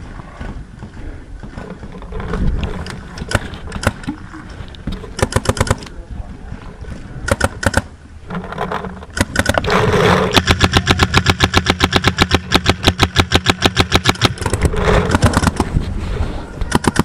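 Paintball markers firing in rapid strings of shots: several short bursts, and one long run of steady rapid fire lasting about five seconds past the middle.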